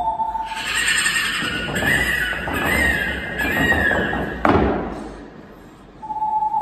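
A woman's vocal imitation of a horse whinnying: a long, wavering, breathy neigh, then about four and a half seconds in a sudden sharp burst that falls away and fades.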